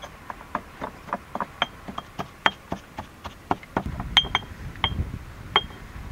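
Pestle pounding in a stone mortar, about four strikes a second, some with a short clinking ring of stone on stone. The strikes slow and stop near the end.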